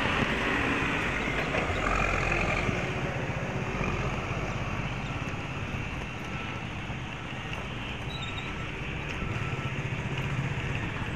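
Heavy construction machinery running: the steady diesel engine noise of earthmoving machines and cranes, with a continuous low rumble.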